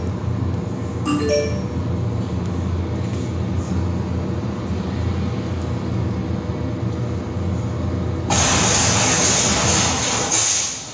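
Soundtrack of a video played over room loudspeakers: a steady low rumble with a chiming note about a second in, then a loud burst of noise for about two seconds near the end.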